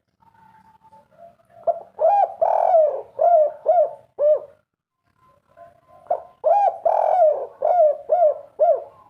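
Spotted dove (tekukur) singing its 'kuk 3' cooing song: two phrases about two seconds apart, each a run of about six short coos with one longer coo near the start.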